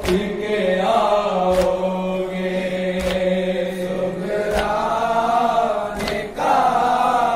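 A group of men chanting a nauha, an Urdu mourning lament, in unison and without instruments. Sharp chest-beating slaps of matam fall in an even beat about every second and a half.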